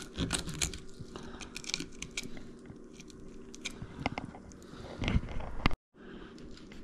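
Knife crunching and cutting through a black sea bass being gutted on a wooden cutting board, with scattered crackling clicks and a louder crunch about five seconds in. The sound cuts out briefly near the end.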